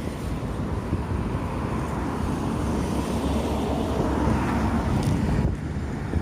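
Road traffic passing steadily on a roundabout, with one vehicle growing louder as it goes by about two thirds of the way through.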